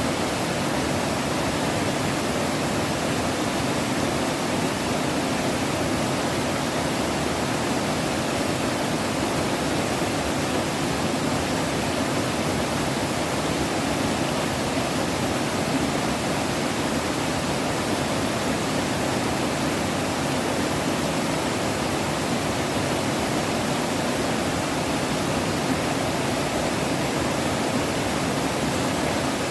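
Mountain stream water rushing, a steady unbroken wash of sound.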